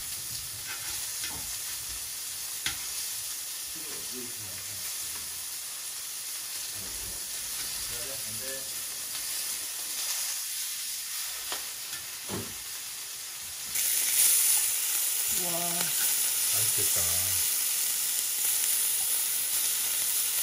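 Strips of pork jowl (hangjeongsal) sizzling and frying in a cast-iron skillet, with a few clicks of metal tongs as the pieces are turned. The sizzle gets suddenly louder about two-thirds of the way through.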